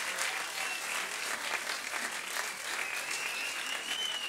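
Club audience applauding, a dense patter of many hands clapping. A thin, wavering whistle sounds over the applause in the second half, rising slightly near the end.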